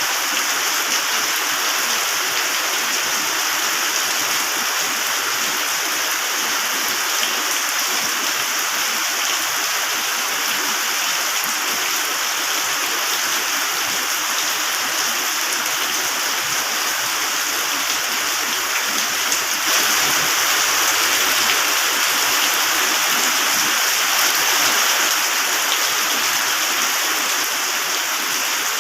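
Heavy rain falling in a steady hiss, briefly heavier about two-thirds of the way through.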